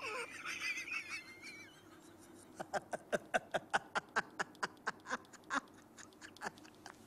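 A man laughing loudly and tauntingly: a high wavering cry at first, then a rapid run of short "ha-ha" bursts, about four or five a second, that thins out near the end.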